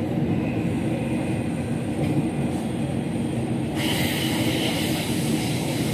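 Train running at speed, heard from inside a carriage: a steady rumble of wheels on rails, with a hissing rush that comes in suddenly about four seconds in.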